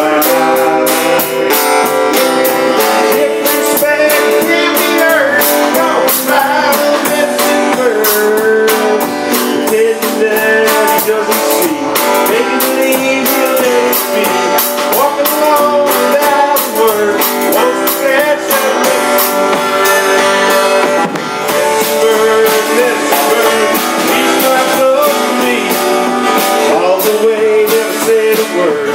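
Band playing a blues-style instrumental passage: guitar with sliding, bent notes over a steady drum kit beat.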